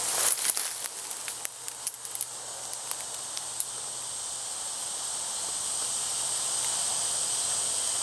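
Steady high-pitched drone of insects in the woods. Over the first few seconds it is mixed with sharp crackles and snaps of dry leaves and twigs underfoot as brush is pushed through.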